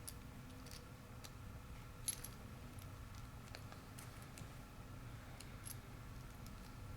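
Faint, scattered small metallic clicks and taps from the parts of a lock cylinder being handled, with one sharper click about two seconds in, as the retaining pin is pressed in and the retaining cap is screwed back on.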